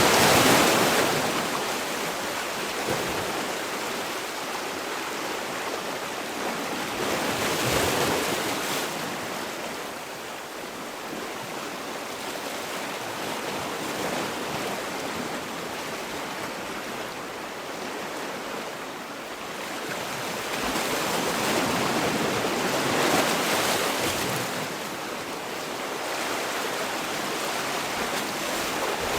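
Sea waves washing on a shore: a steady rush of surf that swells louder several times as waves come in and break, then eases back.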